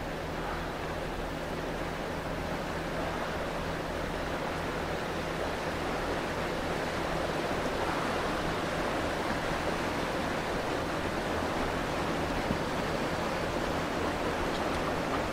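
Steady rushing noise of wind and open water, with a low steady hum beneath; no distinct whale blow stands out from it.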